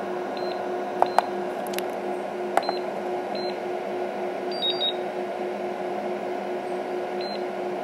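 SkyRC Ultimate Duo 400W X2 battery charger beeping as its buttons are pressed to set up and start a charge: about nine short high beeps, a quick run of them near the middle, with a few sharp button clicks early on. A steady cooling-fan hum runs underneath.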